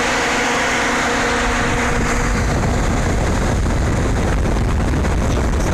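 Radiator cooling fans of a 1999 Chrysler Town & Country running, wired directly to the battery to bypass a failed fan relay: a loud, steady rush of air. A deeper rumble joins about two seconds in.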